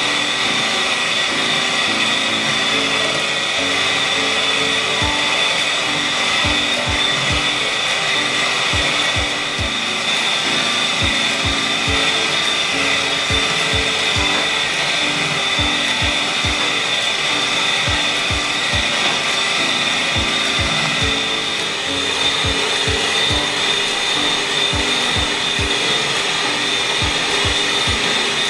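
Electric kitchen appliance motor running steadily with a continuous whine, over background music with a beat.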